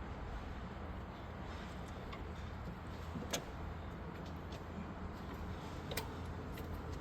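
Serpentine belt being worked by hand onto the engine pulleys: a few light clicks and knocks, clearest about three and six seconds in, over a steady low hum.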